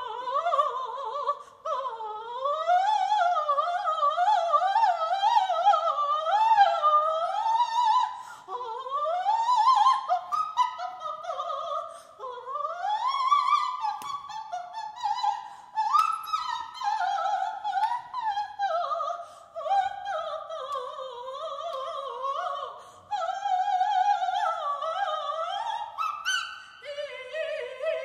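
A woman's unaccompanied operatic soprano singing, with wide vibrato, fast runs and sweeping upward slides, broken by a few short pauses.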